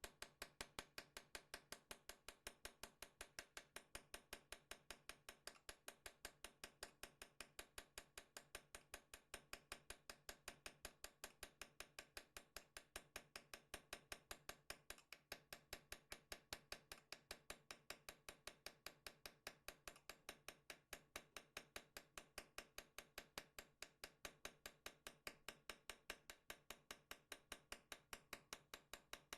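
Small hammer tapping a hand engraving chisel into the soft, not yet hardened steel of a katana blade, light sharp taps in a steady rhythm of about four a second.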